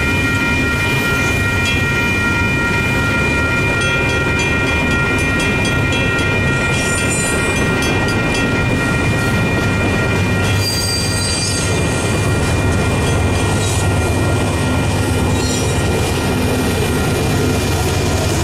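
Double-stack container train rolling past at a grade crossing: a steady rumble of wheels on rail, with clusters of clicks from wheels crossing the rail joints and steady high squealing tones above. Near the end, the diesel engine of the mid-train distributed-power locomotive comes in as it approaches.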